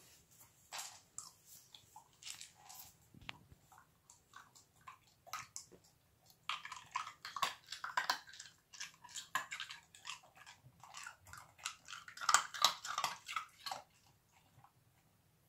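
Irish Terrier puppy crunching ice cubes between its teeth: irregular sharp crunches, scattered at first, then coming thick and fast from about six seconds in until near the end.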